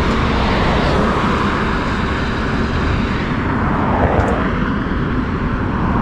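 Heavy highway traffic, trucks and cars passing at speed, as a continuous loud noise; one vehicle passes close about four seconds in.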